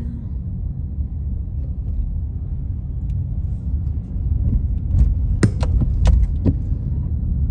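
Car driving, heard from inside the cabin: a steady low road and engine rumble. About two-thirds of the way in come a handful of sharp clicks in quick succession.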